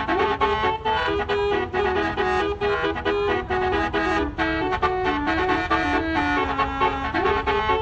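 Basuri telolet multi-tone bus horn playing a quick melody, one reedy held note stepping to the next, over a steady low rumble.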